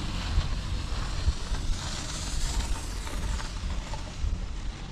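Skis sliding and scraping on the snow during a downhill run, with wind buffeting the microphone; the scraping hiss swells for a second or so about two seconds in.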